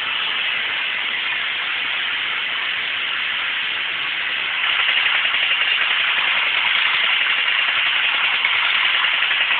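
Battery-operated Horikawa Super Astronaut tin toy robot running, its small motor and gearing giving a steady buzzing, rattling noise that gets a little louder about halfway through.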